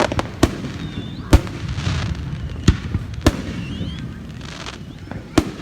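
Aerial fireworks bursting: five or so sharp separate bangs, roughly a second apart, the loudest about a second and a half in, over a low rumble from the shells.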